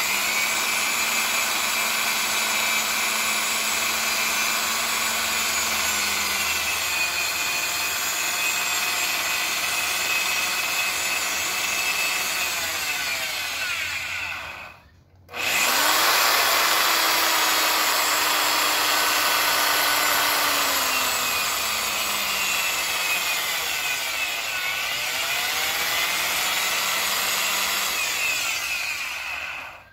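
Corded electric drill running with its bit bearing on a scooter's aluminium deck, in two runs of about fifteen seconds each with a sudden stop halfway through. The motor's pitch falls in places.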